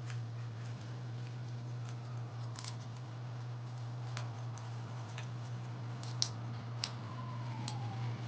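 Close-miked eating sounds of roast chicken: scattered sharp clicks and crackles of chewing and handling the meat, with two louder clicks a little past six seconds in, over a steady low hum.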